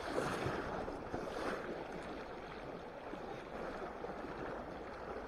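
River current flowing, a steady rush of water.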